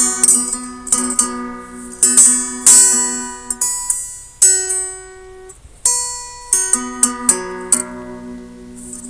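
Guitar instrumental: strummed chords and plucked notes ringing out and decaying, thinning to a few single notes about halfway through before the chords return.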